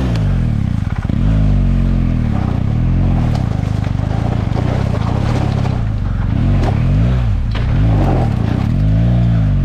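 BMW GS boxer-twin engine revving up and down under load in a low gear as the motorcycle climbs a rocky trail. The pitch rises and falls again and again with the throttle, and there are a few sharp knocks from stones under the bike.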